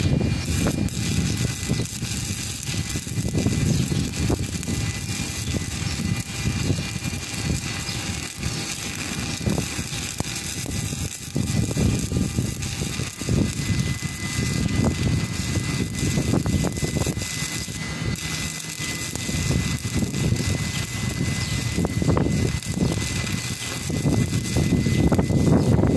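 Stick (shielded metal arc) welding: the electrode's arc crackles and sizzles steadily as a bead is laid.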